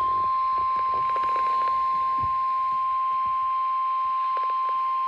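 NOAA Weather Radio 1050 Hz warning alarm tone: one steady, unbroken high-pitched beep, the alert signal for a severe thunderstorm warning.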